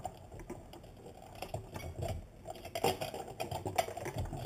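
Scattered light clicks and taps from the fuel pump assembly being worked loose in the fuel tank opening, where it has snagged on something.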